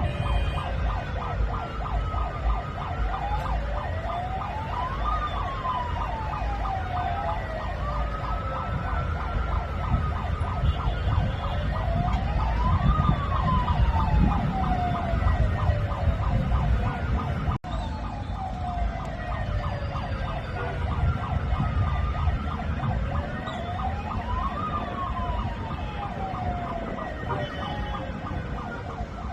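Siren sounded from a car, a slow wail that rises over a few seconds and falls away more slowly, about three times, over a steady low rumble of traffic. The sound cuts out for an instant about two-thirds of the way through.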